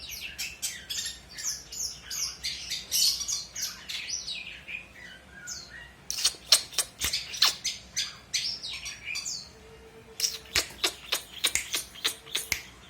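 Long-tailed shrike singing a fast, varied song: quick chirps and down-slurred whistles, then from about halfway a run of sharp, harsh clicking notes.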